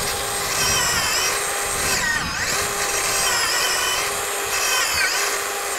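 DeWalt 60-volt cordless drill spinning a Power Planter earth auger into soil, its motor whining steadily. The pitch dips twice, about two seconds and five seconds in, as the auger bites and loads the motor, and the drill stops at the very end.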